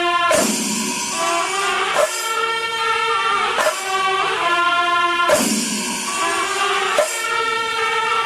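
Background music: sustained melody notes with a regular percussive beat about every second and a half.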